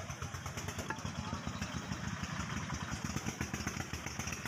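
A small engine running steadily, a fast, even low throb like a motorcycle idling.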